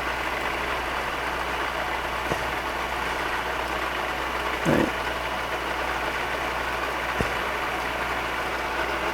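Milling machine running steadily with an even hum, with a few faint clicks.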